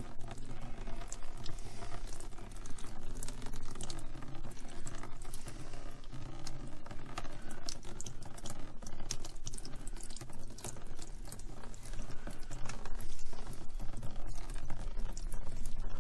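Water draining from a Noritz tankless water heater's neutralizer through a short hose into a plastic tub, many small irregular drips and splashes, over a low steady hum.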